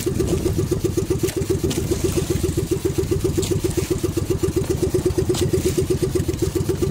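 Outrigger fishing boat's engine running steadily, with a fast, even pulse.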